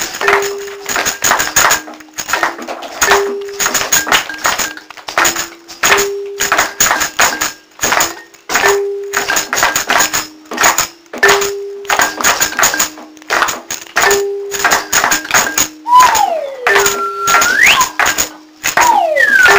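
Background music: a busy run of sharp percussive taps over a short low two-note figure that repeats about every three seconds, joined by sliding pitch glides, one falling and two rising, in the last few seconds.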